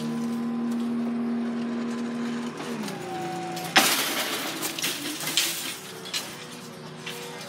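Train passing over the level crossing. A steady engine drone falls in pitch about two and a half seconds in. About a second later a sudden loud rush of noise with rattling clicks begins, then fades.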